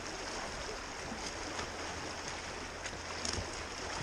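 River water rushing and splashing around a kayak in a fast riffle, with a few sharper splashes from paddle strokes.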